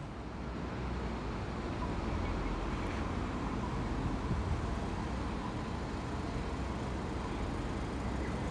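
Steady street traffic noise with a low rumble, getting a little louder about a second in.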